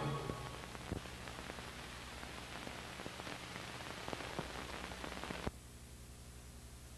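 Soundtrack noise of an old television recording: an even hiss with scattered faint crackles and clicks over a steady low hum. The hiss drops noticeably about five and a half seconds in.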